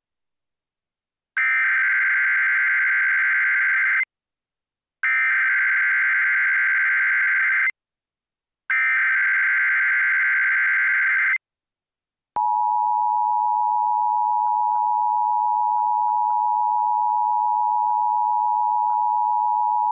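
Emergency Alert System signal on NOAA Weather Radio: three bursts of SAME header data, a rapid buzzing digital screech each about two and a half seconds long with short gaps between, then the long steady attention tone starting a little past the halfway point.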